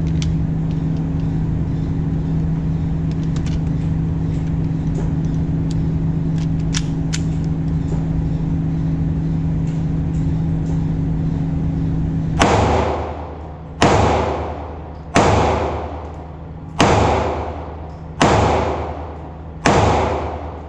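A steady mechanical hum, then, about twelve seconds in, six 9mm pistol shots from a Ruger EC9s, fired about a second and a half apart, each followed by a short echo.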